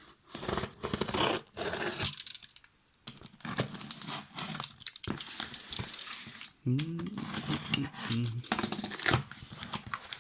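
Cardboard box being opened by hand: packing tape tearing and cardboard rustling and scraping in irregular rasps and clicks. A short voice sound comes in around seven seconds.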